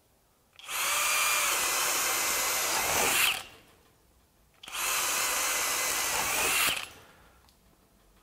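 FLEX 24-volt FX1271T drill in turbo mode, speed two, driving a 7/8-inch self-feeding auger bit into a pressure-treated 4x4: two runs of steady motor whine with the bit cutting wood, each lasting two to three seconds, with the drill stopped in between.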